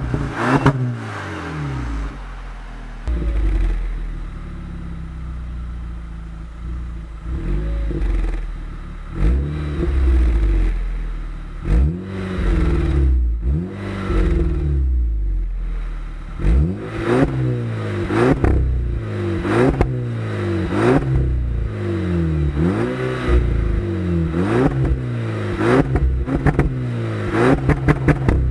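Volkswagen Scirocco's engine through a Milltek aftermarket exhaust, revved repeatedly at a standstill: quick throttle blips that rise and fall in pitch, with idle between. The blips come faster, about one a second, in the second half.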